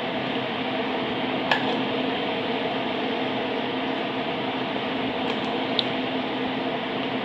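Steady mechanical hum, like a fan running, with a sharp click about a second and a half in and a fainter tick near the end.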